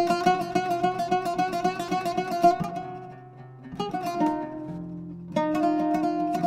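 Oud duo playing a quick run of plucked notes over a low sustained note. The music eases into a short lull a little before the middle, then starts new phrases about four and about five and a half seconds in.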